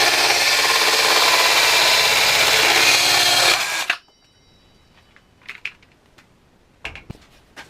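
Parkside PHKSA 12 A1 12-volt cordless mini circular saw making a 45-degree bevel cut, running at a steady pitch with the blade cutting through the material. It stops about three and a half seconds in and winds down, followed by a few light knocks and clicks.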